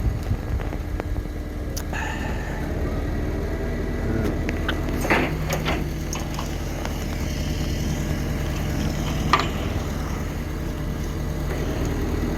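A vehicle engine idling steadily, with a few sharp metallic knocks and clanks over it.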